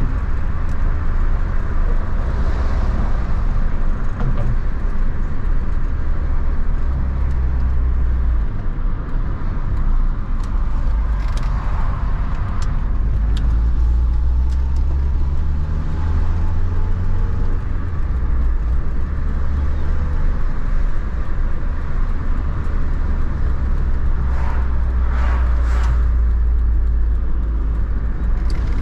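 A Renault Kangoo van's 1.4-litre, 75 hp engine running while driving, over a steady low drone of engine and road noise. The engine note rises around the middle, with a few short knocks near the middle and near the end.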